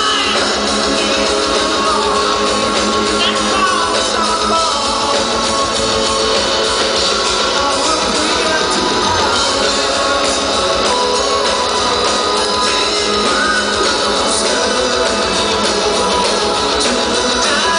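Power metal band playing live, with a singer's voice over electric guitar and drums, recorded from among the audience.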